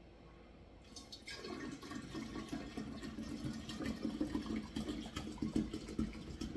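Kombucha starter liquid poured from an upended bottle into a large glass jar of sweet tea, the stream splashing and filling. It starts about a second in.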